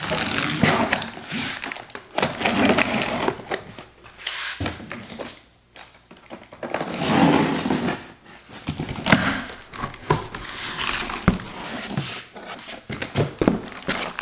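Cardboard shipping box being opened with a utility knife: the blade slitting the packing tape, then the cardboard flaps pulled back and the contents rustled, in irregular scraping bursts with occasional knocks.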